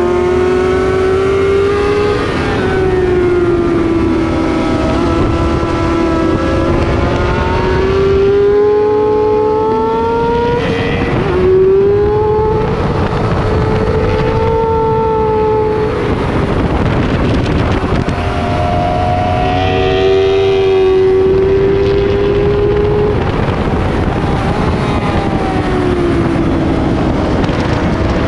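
Onboard sound of a sport motorcycle at race pace. The engine note climbs under acceleration and falls back several times as the rider shifts and brakes, over a heavy rush of wind.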